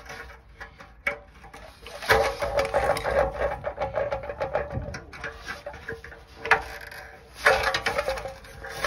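Rubber exhaust hanger being worked off its steel hanger rod with an exhaust hanger removal tool: rubber rubbing and squeaking against metal, with clicks of the tool. The sound comes in two spells, from about two seconds in and again near the end.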